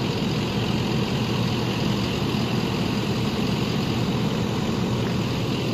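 Engine idling steadily, an even low running sound with no change in speed.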